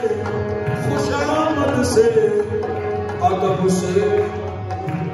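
Live qawwali: male voices sing long, drawn-out melodic lines over a steady harmonium accompaniment, with light tabla strokes.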